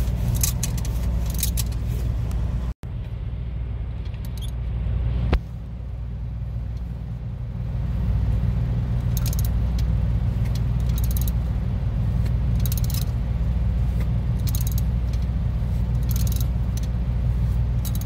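Socket ratchet clicking in short bursts as new studs, each locked with two nuts, are run into a Detroit Series 60 exhaust manifold. Under it, the steady low drone of an idling engine.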